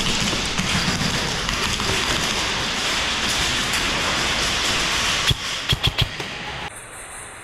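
Background music with a dense, noisy sound, then four sharp hits a little past five seconds in.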